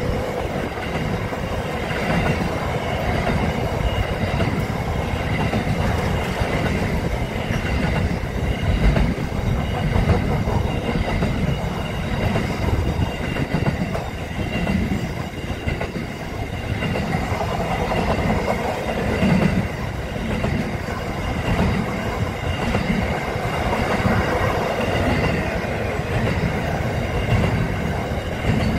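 SCT freight train's wagons rolling steadily past at speed: a continuous rumble and clatter of steel wheels on the rails, with a faint steady high-pitched ring running through it.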